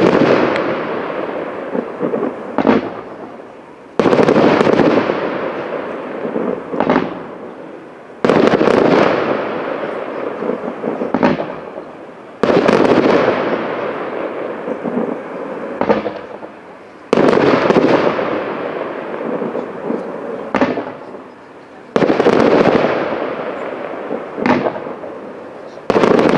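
Fireworks: aerial shells bursting one after another, about every four to five seconds. Each burst is a loud bang followed by a long fading echo, and a fainter crack comes about a second before each bang.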